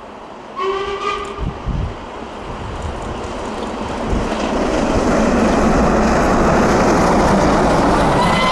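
Steam locomotive whistle sounds briefly about half a second in, then a double-headed steam train passes close, its running noise and the rumble and clatter of the coaches building to a steady loud level. Another whistle starts right at the end.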